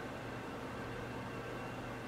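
Steady hiss and whir of room noise with a faint hum, from a room where a desktop computer is running.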